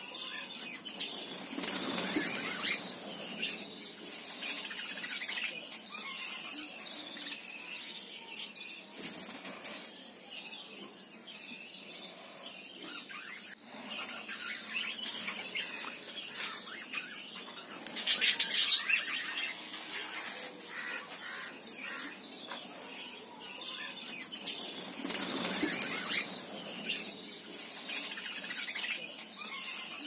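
A flock of budgerigars chattering and chirping, with wings flapping in several bursts, the loudest about two-thirds of the way through.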